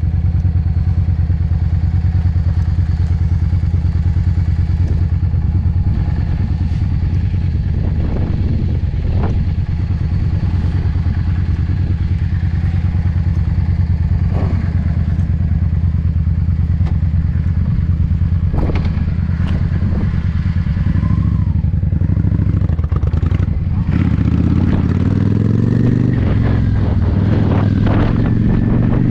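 Yamaha V-Star cruiser's V-twin engine running with a steady low rumble, then rising in pitch in steps near the end as the bike accelerates. A few sharp knocks and clatters sound along the way.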